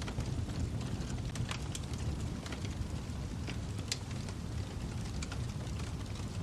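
Wood fire in a fireplace crackling: irregular sharp pops and snaps over a steady low rumble, with one louder pop about four seconds in.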